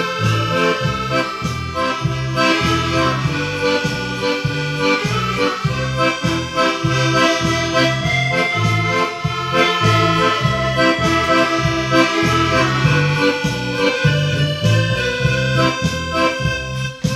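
Instrumental background music with held melodic notes over a steady, pulsing bass beat.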